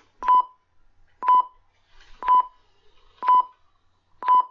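Recording-app countdown beeps: a short, identical electronic beep about once a second, five in all, counting down to the start of recording.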